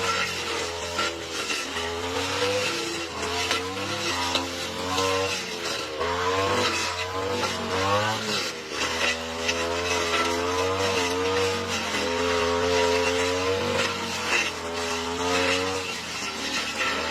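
Lawn mower engine running under load while cutting thick, overgrown grass. Its pitch keeps dipping and recovering, with a sharper sag and climb about halfway through.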